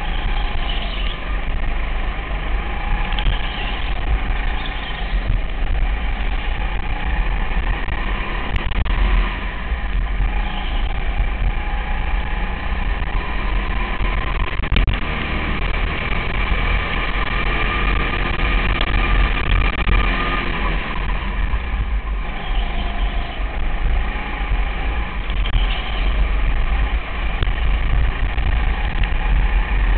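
200cc go-kart engine running hard through a race lap, a loud continuous drone with no let-up.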